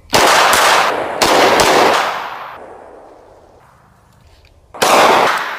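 Handgun firing in rapid strings of shots: two quick strings in the first two seconds, their echo fading away, then another string near the end.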